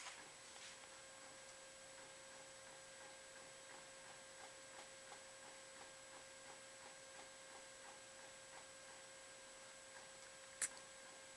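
Epson Stylus Photo 1390 inkjet printer printing on roll paper, faint: a steady hum under soft, regular ticks about three a second, with one sharp click near the end.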